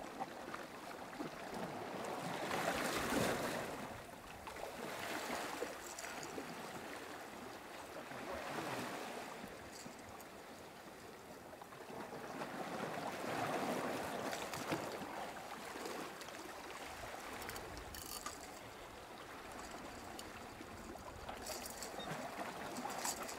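Sea swell washing and surging over lava rocks, swelling up and draining back every few seconds, with a few short clicks near the end.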